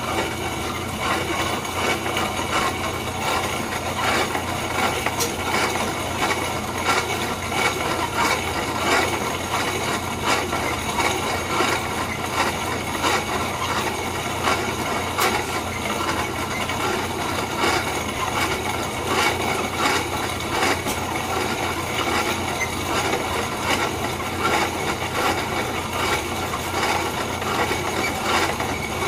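Corona-style grain mill crushing malted barley, a continuous dense crackling and grinding of kernels over a steady low hum.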